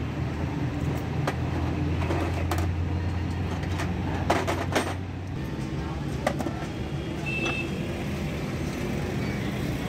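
A few sharp metallic clinks as steel gearbox gears, shafts and tools are handled on a metal tray, over a steady low engine hum that drops away about halfway through.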